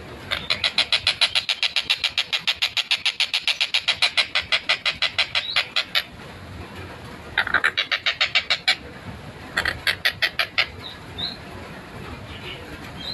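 A collared kingfisher (tengkek buto) calling in rapid, evenly spaced runs of short notes, about seven a second. One long run lasts some five seconds, followed by two shorter runs about a second each.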